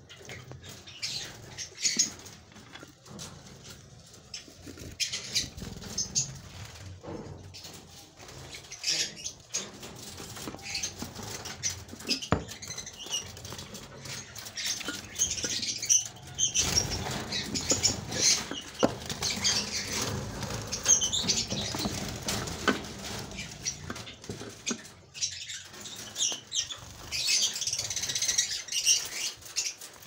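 Java sparrows in an aviary fluttering and flapping their wings, with short high chirps and rustling; the activity is busiest in the second half.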